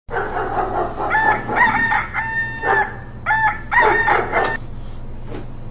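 A rooster crowing twice, each crow a run of short notes ending in a longer held one, over a steady low hum.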